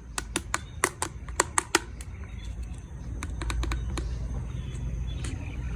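A quick run of sharp clicks, about eight in the first two seconds, then a few fainter clicks and a low rumble that swells about halfway through.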